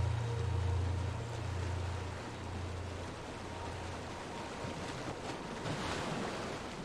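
Ambient sleep soundscape: a low pulsing drone, about one swell a second, fades out over the first three seconds. It leaves a steady wash of noise that swells briefly about six seconds in.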